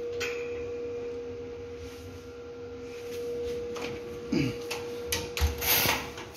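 Steady hum of lab equipment with light clicks and knocks of handling, and a short burst of rustling scrape about five and a half seconds in.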